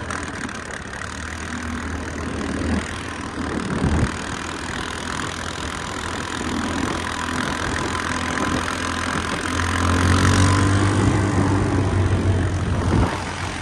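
ATV (four-wheeler) engine running under way on a gravel track, with tyre and wind noise. The engine gets louder about ten seconds in and drops back near the end.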